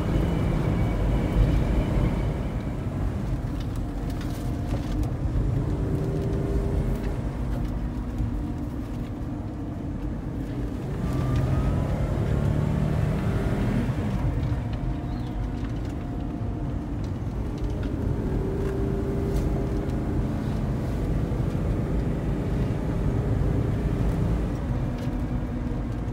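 Volkswagen T4 Transporter van driving, its engine and road noise heard from inside the cab as a steady low rumble, with the engine note shifting up and down with the revs.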